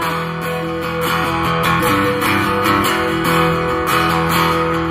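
Acoustic guitar strummed in a steady chord rhythm, amplified through PA speakers.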